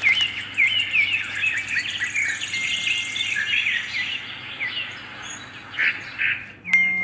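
A chorus of songbirds chirping and calling, with many quick rising and falling chirps overlapping. A steady high whistled note is held for about a second in the middle and comes back near the end.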